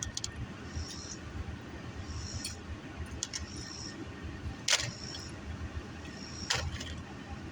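Handling and eating noises from a takeout meal of fries, wings and tilapia, over a steady low rumble. Two sharp crackles stand out, about five seconds in and again a couple of seconds later.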